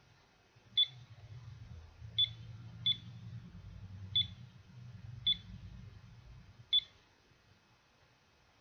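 Digital alarm clock beeping as its buttons are pressed: six short, high beeps at uneven intervals.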